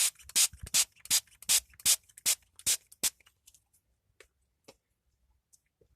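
Small hand-pump mister spraying water in a quick series of short spritzes, about three a second, that stop after about three seconds.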